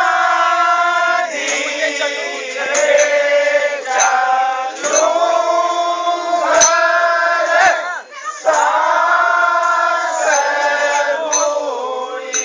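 Group of men singing a khadi Holi song in chorus, long held sung lines rising and falling together. A sharp metallic clink marks the beat about once a second.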